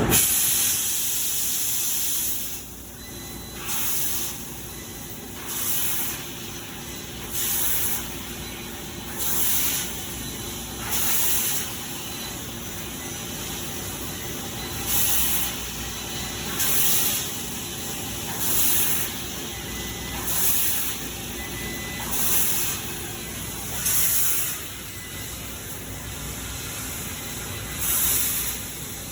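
CNC fiber laser cutter running, its assist gas hissing in short bursts about every two seconds over a steady hum. A longer hiss opens the stretch.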